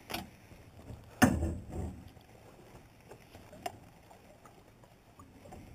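A landing net holding a smallmouth bass knocks against the side of a small boat as the fish is brought aboard. One loud hollow thump comes about a second in, then a few faint knocks.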